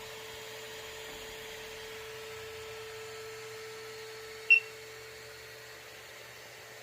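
Steady electrical hum and hiss, with one short, high electronic beep about four and a half seconds in.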